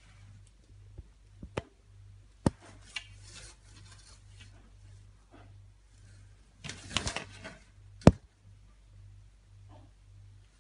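A Gordon Setter pawing and snapping at a gnat on a tiled floor: a handful of sharp clicks and taps of claws and paws on the tile, with a brief scuffling rustle about seven seconds in and the loudest click just after it.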